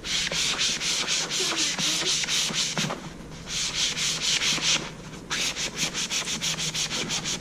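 Magic eraser sponge scrubbed back and forth over a tan leather car seat wet with leather cleaner, in quick even strokes of about four a second, with short breaks about three seconds in and again about five seconds in.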